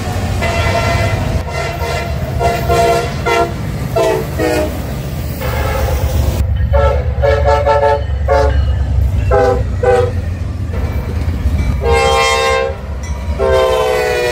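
Diesel freight locomotives sounding their air horns in a run of blasts, several short and a few held longer, over the steady low rumble of the passing locomotives and train. The sound jumps abruptly partway through as one train's horn gives way to another's.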